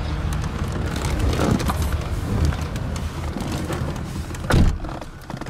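Outdoor background noise with small handling clicks, then a car door shutting with a single heavy thump about four and a half seconds in. After the thump the surrounding noise drops away, as if heard from inside the closed cabin.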